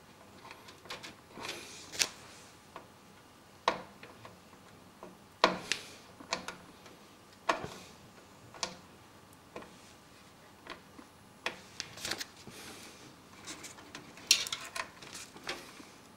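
Irregular small clicks, taps and rustles of hands handling front-panel switch wires and fitting their small plastic plug connectors onto motherboard header pins.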